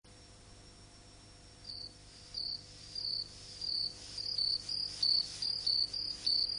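A cricket chirping: short high chirps start about two seconds in, repeating roughly every two-thirds of a second and then coming faster, over a faint steady hum.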